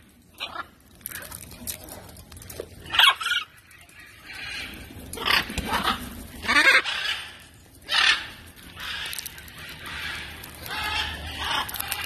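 Macaws squawking: a string of loud, harsh calls, the loudest about three seconds in and several more between five and eight seconds, with softer calls in between.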